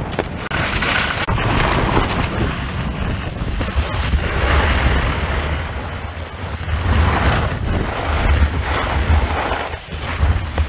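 Skis scraping and carving through soft spring snow on a descent, the hiss swelling with each turn every couple of seconds, with wind rumbling over the ski-mounted camera's microphone.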